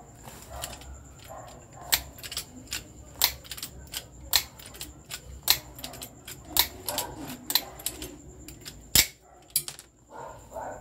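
Long-handled lever pop rivet plier being pumped to pull a rivet, its jaws and linkage giving sharp metallic clicks about one or two a second, irregularly. One louder crack comes about nine seconds in.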